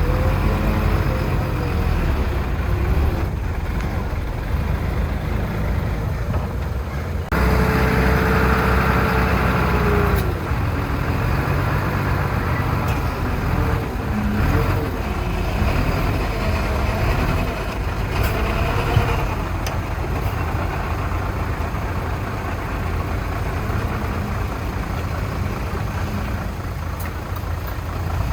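Diesel engines of heavy earthmoving machinery, dump trucks and a bulldozer, running steadily. About seven seconds in the sound changes abruptly and a held tone sounds for a few seconds.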